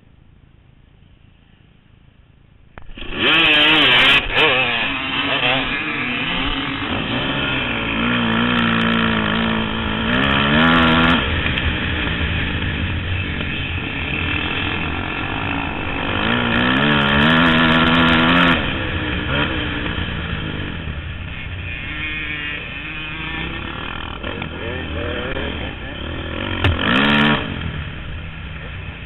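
Dirt bike engines at an off-road race start, heard from the rider's own bike: quiet at first, then about three seconds in the engines burst into loud full-throttle running. The rider's engine winds up through the gears with a rising pitch that drops at each shift, twice, with another short rev near the end.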